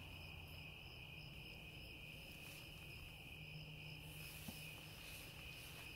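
Faint, steady chirring of a cricket chorus, with a low hum underneath.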